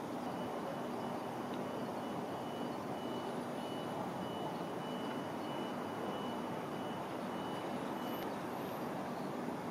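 Steady, distant city traffic hum. A faint, thin high tone runs through it and stops about eight seconds in.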